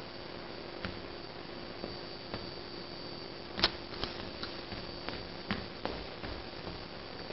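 Quiet office room tone: a steady hum with scattered light knocks and clicks, the sharpest about three and a half seconds in and several smaller ones soon after.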